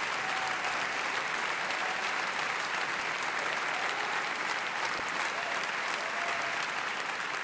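Audience applauding steadily, a dense, even clapping from a large hall crowd.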